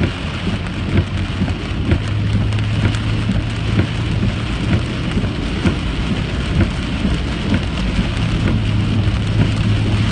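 Heavy rain striking a car's roof and windshield, heard inside the moving car: a dense patter of drops over a steady low hum of engine and tyres on the wet road.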